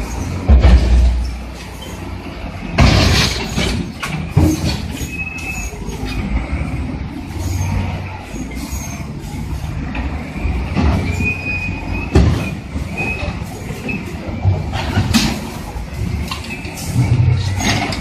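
Diesel engines of wheel loaders running as the machines ram each other, with several loud metal crashes and a few short high squeals of metal scraping on metal.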